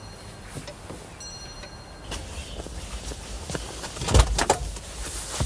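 A few faint knocks, then a low rumble sets in about two seconds in, and a car door shuts with two loud thumps a little after four seconds.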